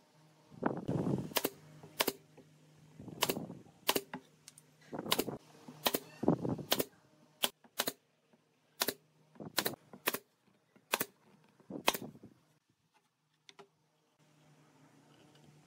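Pneumatic brad nailer firing a series of sharp shots at uneven spacing, driving brads through a pallet-wood top into a slatted box edge, about fourteen in all, stopping about twelve seconds in. Duller, noisier sounds come between some of the shots.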